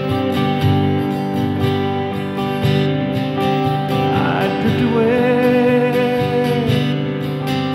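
Acoustic guitar strumming chords with an electric guitar playing along, with no singing. About four seconds in, a single long note slides up and is held with vibrato for about two seconds over the strumming.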